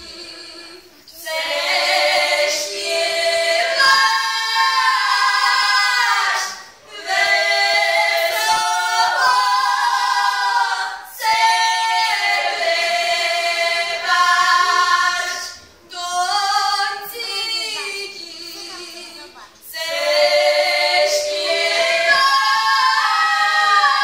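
Group of young women singing a Polish highlander (Górale) folk song unaccompanied, in loud, high-voiced phrases with short breaks between them and a quieter, thinner stretch past the middle.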